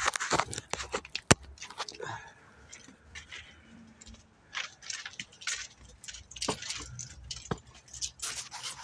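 Handling noise from a phone being moved and carried: irregular scrapes, clicks and rustles as the microphone rubs against cloth and hands. A single sharp click about a second and a half in is the loudest sound.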